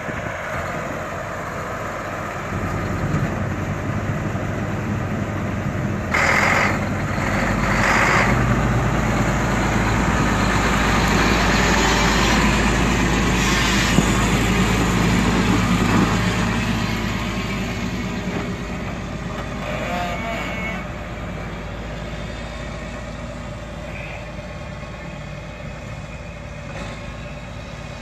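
John Deere 9530 4WD tractor's 13.5-litre six-cylinder turbo diesel running with a steady low rumble. It grows louder a few seconds in, is loudest through the middle, then eases off toward the end. Two short bursts of noise come about six and eight seconds in.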